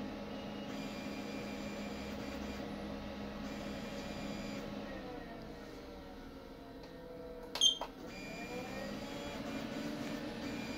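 Roland LEC-330 UV printer/cutter running with a steady hum of fans and motors. About halfway through, the motor tones wind down in pitch and a short, sharp beep sounds. The tones then wind back up as the machine carries on processing.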